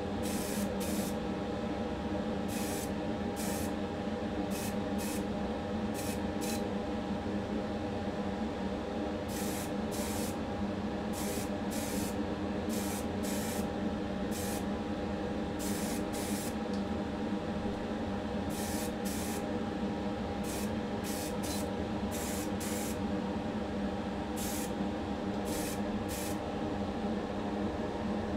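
Primer being sprayed in many short hissing bursts, over the steady hum of a running motor.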